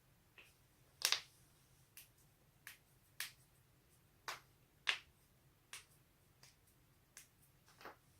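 A series of about eleven sharp joint cracks and pops, one every half second to second at an uneven pace, the loudest a double crack about a second in and another just before the five-second mark.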